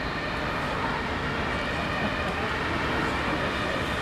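Road traffic ambience: a steady wash of vehicles passing, with tyre and engine noise.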